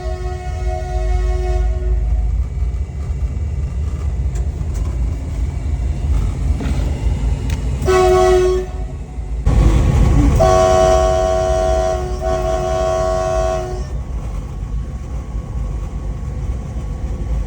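WDG4G diesel locomotive's horn sounding three times over the locomotive's heavy low rumble: a blast that ends about 2 s in, a short blast about 8 s in, and a longer blast of about 3 seconds near the middle. A loud rushing burst comes just before the long blast.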